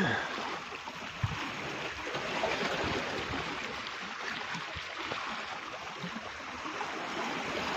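Seawater washing and lapping at the shore, a steady wash of noise that slowly grows louder, with a single knock about a second in.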